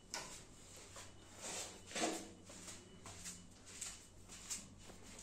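Footsteps going down a carpeted staircase, soft muffled steps about two a second, with some rustle of handling.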